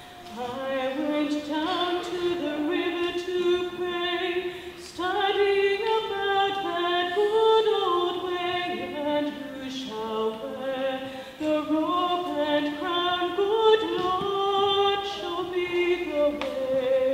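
Singing: a slow melody sung in phrases with long held notes, with brief breaks between phrases.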